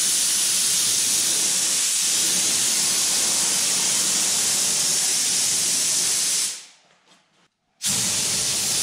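Compressed-air paint spray gun with a cup on top, spraying paint: a steady hiss that cuts off about six and a half seconds in and starts again a second later.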